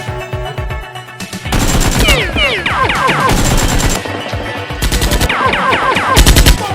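Rapid machine-gun fire sound effects in three bursts over background music: a long burst starting about a second and a half in, a short one near the middle and the loudest one just before the end.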